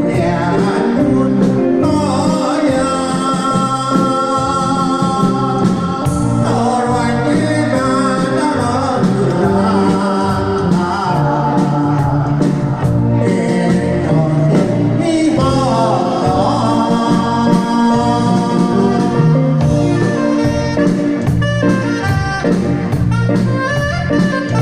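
A Taiwanese enka-style song: a singer holding long, wavering notes over a backing track with a steady beat.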